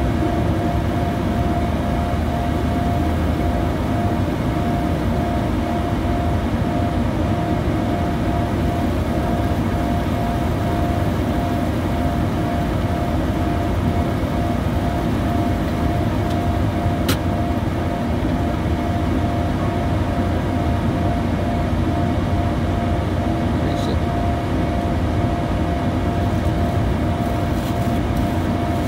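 Cabin noise inside a Bombardier Challenger 350 business jet in flight: the steady drone of its twin rear-mounted turbofans and the rushing airflow, with a steady mid-pitched tone running through it. A single sharp click sounds about 17 seconds in.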